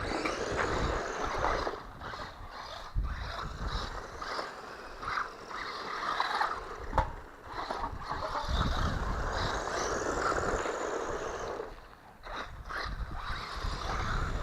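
A 1/12-scale four-wheel-drive hobby-grade RC car driving over rough ground, its electric motor and tyres rising and falling in loudness as it speeds up and slows down.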